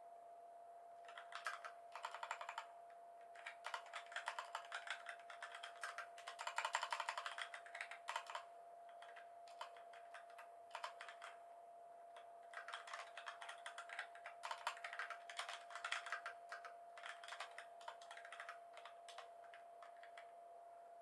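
Typing on a computer keyboard: two stretches of rapid key clicks with a pause of a few seconds between them, over a faint steady hum.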